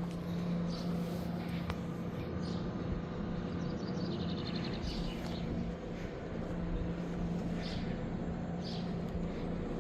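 Zastava 750 engine running steadily with an even, low hum. Birds chirp briefly several times, including a quick trill about halfway through.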